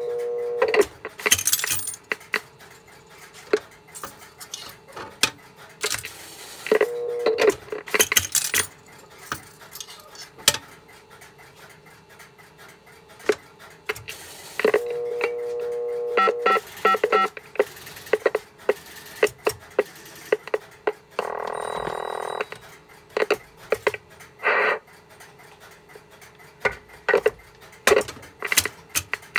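Western Electric 1234G payphone with its housing off, its coin relay and hopper mechanism worked by hand: a run of sharp mechanical clicks and clunks, with a few short tones from the phone line heard through a monitor speaker, and a quick series of short touch-tone beeps about 16 seconds in.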